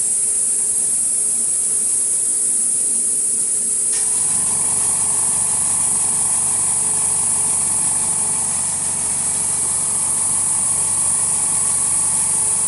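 Steady machine hiss with a low mechanical hum that starts about four seconds in and runs on evenly.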